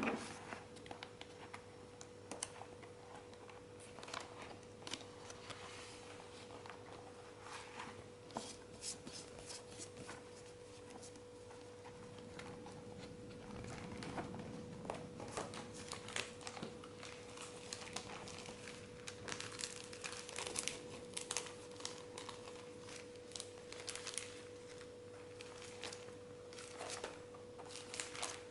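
Trading-card packaging and cards being handled by hand: crinkling, rustling and small clicks and taps throughout, with a sharp knock right at the start, over a faint steady hum.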